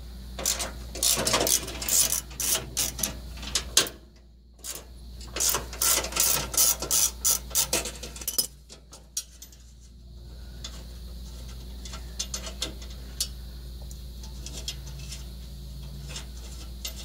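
Hand ratchet wrench clicking in quick runs while backing out skid-plate bolts, with a short break about four seconds in. The clicking stops about halfway through, leaving only a few faint ticks.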